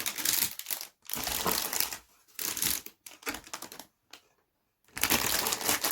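Bagged plastic model-kit parts being handled, the packaging crinkling and rustling in irregular bursts, with a pause of about a second before a last loud burst of crinkling near the end.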